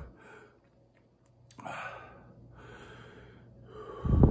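A man breathing out hard through pursed lips as hot sauce burns his mouth: two long hissing exhales, then a forceful blow near the end that buffets the microphone.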